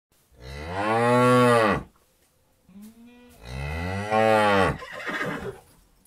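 Cow mooing: two long, loud moos that rise and then fall in pitch, with a short, quieter low call between them.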